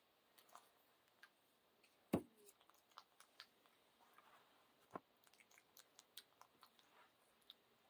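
Near silence with faint scattered clicks and soft rustles from a Java macaque handling a piece of cloth. A sharper knock comes about two seconds in, and another about five seconds in.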